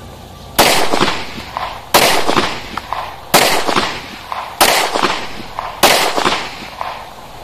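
Five 9mm pistol shots from a Glock 19, fired one at a time about a second and a half apart, each followed by an echo that dies away over about a second.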